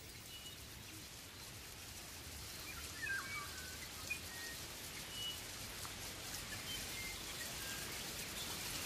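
Faint outdoor ambience: a few short bird chirps over a steady hiss that slowly grows louder.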